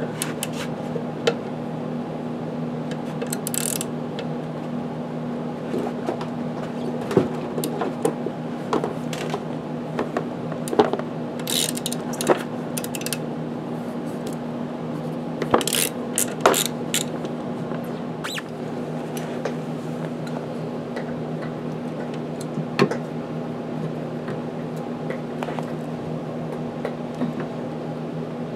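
Scattered clicks and metallic clinks of hand tools and clips as an old brake line is worked loose on a motorcycle, a few clusters of sharp clicks, over a steady low hum.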